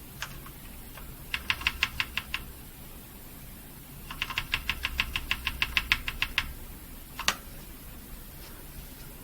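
Quick, evenly spaced key clicks on a mechanical keyboard with brown switches, about eight a second, in a short run and then a longer one, followed about a second later by one single louder click.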